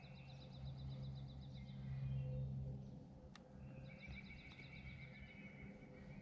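Small woodland songbirds singing rapid trills, two overlapping songs, once at the start and again about four seconds in, over a low steady hum.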